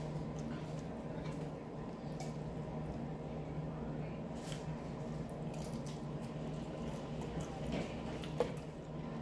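Close-up eating sounds: wet, squishy chewing and the crackle of a crisp fried roll being pulled apart by hand. A steady low hum runs underneath, and there is one sharp click near the end.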